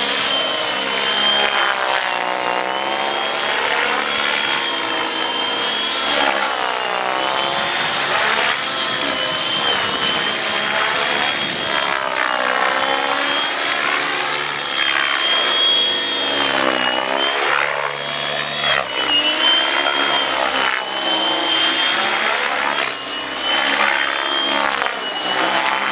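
Electric-converted Thunder Tiger Raptor 90 SE model helicopter in flight: a steady high-pitched whine from its electric drive over the rush of the rotor blades. The whine wavers slightly in pitch, and the rushing sound sweeps up and down in tone again and again as the helicopter moves about.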